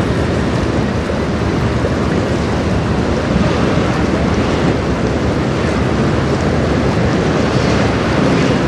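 Wind buffeting the microphone in a steady low rumble over the wash of choppy river water.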